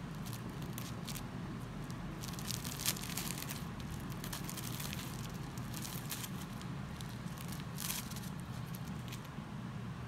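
A fork cutting into crisp, freshly fried breadcrumb-coated rolls, the crust crackling and crunching in irregular bursts, loudest in the middle and once more near the end, over a steady low hum.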